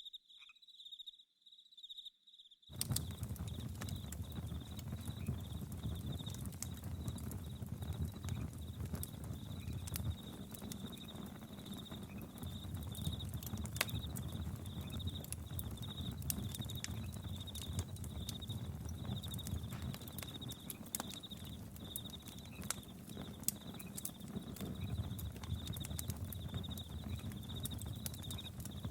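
Campfire crackling and popping with crickets chirping in a steady pulsing trill and a low rumble underneath. The sound drops almost to nothing for the first couple of seconds, then comes back abruptly.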